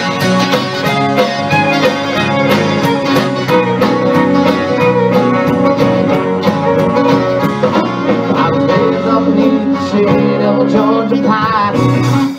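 Live country band playing an instrumental intro: acoustic guitar and fiddle over drums keeping a steady beat.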